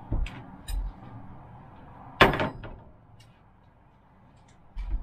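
A few light knocks, then one loud bang about two seconds in, followed by a quieter stretch and more knocks near the end.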